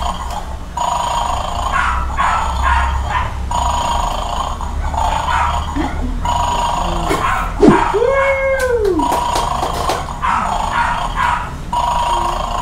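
Battery-operated toy bulldog from the Bad Dog board game playing a looped electronic sound effect through its small speaker, repeating about every second and a half, as bones are pulled from it. A brief rising-and-falling voice-like call sounds about eight seconds in.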